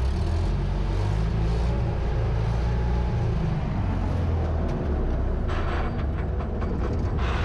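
U650 tractor's diesel engine running steadily, heard from inside its open, rattly cab. A clattering, rattling texture rises over it in the second half.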